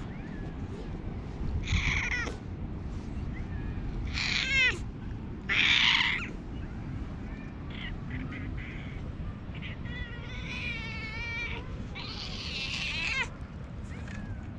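Stray cat meowing in a hoarse, raspy voice as it seeks affection, about five separate calls, with a longer wavering one about ten seconds in.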